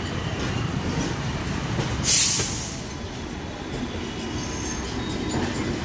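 Train running along the track with a steady rumble of wheels on rails, and a brief hissing rush about two seconds in.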